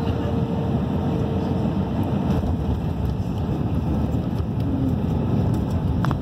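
Steady roar of an Airbus A319 heard from inside the cabin as it rolls down the runway on landing: engine and rushing airflow and tyre noise, heaviest in the low end. A faint steady tone sounds for the first second and a half, and there is a short click near the end.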